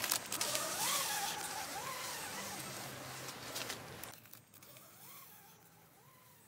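Bear-bag line sliding and rustling as it is hauled up hand over hand into a tree, for about four seconds, then an abrupt drop to quiet forest ambience. A faint bird chirp comes about once a second.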